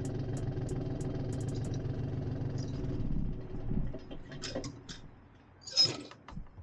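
An engine idling steadily with a light ticking over it. It stops about three and a half seconds in and is followed by a few light knocks and one loud sharp knock near the end.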